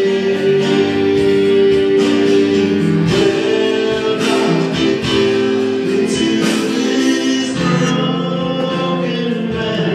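Live worship music: sustained keyboard chords that change every few seconds, with singing over them.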